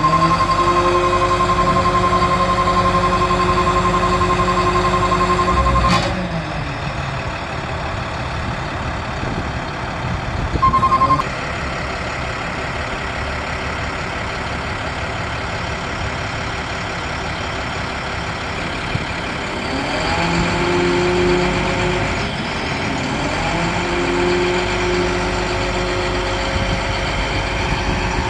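International DT466 turbo diesel of a bucket truck running while the Altec boom hydraulics are worked, its note rising twice in the second half as the engine speeds up. A steady high warning tone sounds over it for the first six seconds and again briefly about eleven seconds in.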